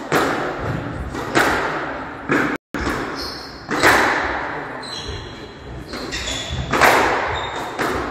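Squash ball smacked by rackets and off the court walls during a rally: about five sharp hits a second or more apart, each ringing out with a long hall echo. Court shoes squeak briefly on the wooden floor about midway.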